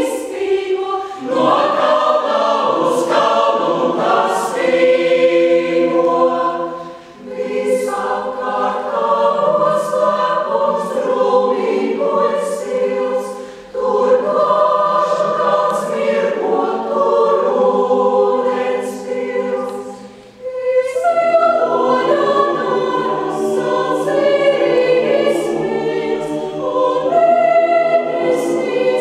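Mixed choir of men's and women's voices singing a Latvian song in chords, with short breaks between phrases about 7, 14 and 20 seconds in.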